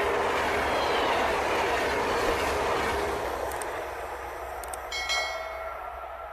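O gauge model train running, a steady rushing noise that fades over the first four seconds. About five seconds in comes a brief ringing tone at several pitches, like a horn or whistle.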